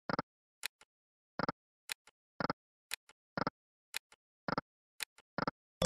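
Online slot game sound effects: a steady run of short clicks, about two a second, as the reels spin and stop.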